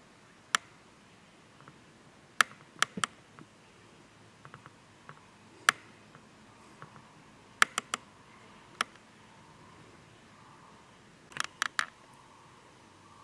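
Sharp, irregular clicks, about a dozen, some in quick pairs or threes and a tight cluster near the end, over a faint steady background.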